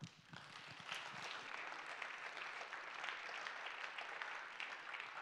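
Audience applauding: many people clapping together, starting a moment in and holding steady.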